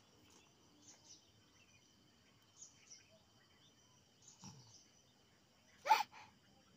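Faint, steady, high-pitched insect chirring, with a few soft ticks and one short, loud, sharp sound about six seconds in.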